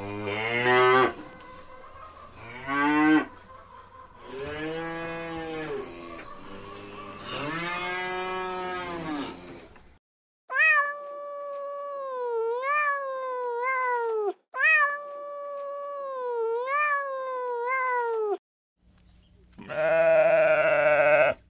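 Cattle mooing, about four drawn-out calls, then a cat meowing in two runs of long, wavering meows. Near the end comes one loud bleat.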